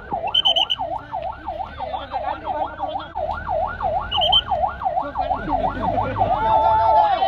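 Electronic vehicle siren in a fast yelp, its pitch wailing up and down about three times a second, then holding a steady tone near the end. Two brief high chirps sound over it, about half a second and four seconds in.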